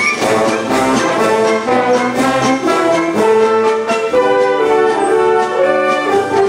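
Concert wind band playing a grand march: brass and woodwinds holding full chords over a steady beat.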